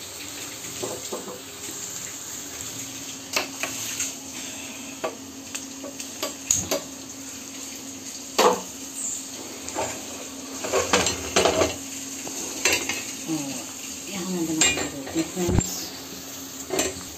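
A steel spoon stirring onions and peas in a kadhai, clinking and scraping against the pan again and again, over the steady sizzle of frying.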